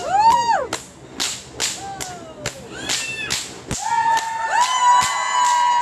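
Whips cracked in rapid succession, about two to three sharp cracks a second, coming faster toward the end. A high held tone sounds under the cracks over the last two seconds.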